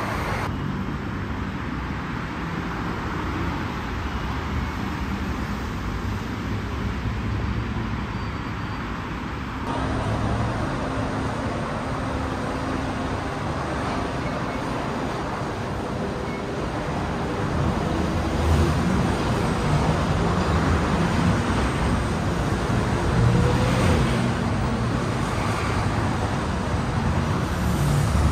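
Steady city road-traffic noise, a continuous rumble and hiss of passing vehicles. The background changes abruptly about half a second and about ten seconds in, and grows louder with heavier low rumble in the last ten seconds.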